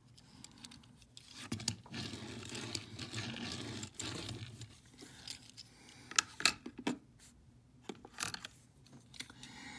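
Hands handling a small die-cast metal toy car: rubbing and scraping as it is turned in the fingers and set down on the tabletop, then several short, sharp clicks and taps in the second half.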